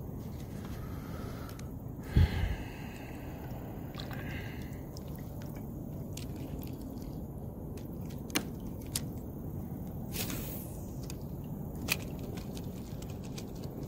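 Handling sounds from kayak fishing: a sharp knock about two seconds in, a few light clicks later and a brief hiss about ten seconds in, over a steady low rumble.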